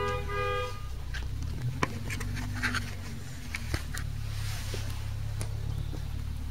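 A steady low hum with scattered light clicks and clinks of plates and serving utensils on a set table, and a brief two-note tone at the very start.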